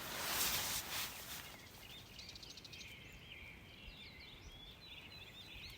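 A short burst of noise in the first second and a half, then small birds chirping over and over.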